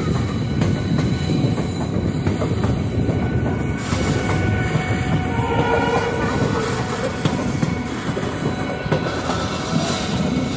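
Passenger express train running, heard from on board: a steady rumble and clatter of the coaches' wheels on the rails.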